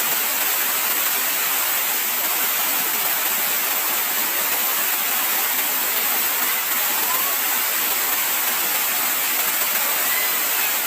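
Waterfall rushing steadily: a constant, even hiss of falling and splashing water.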